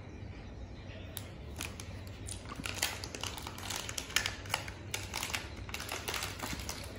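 Plastic wrapper of an ice cream bar crinkling and crackling in irregular bursts as a child handles and tears at it, starting about a second in.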